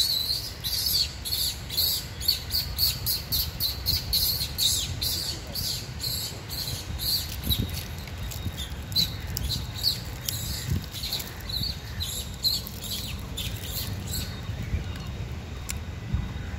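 Small birds chirping: quick, repeated high chirps several times a second, thinning out in the second half, over a low rumble.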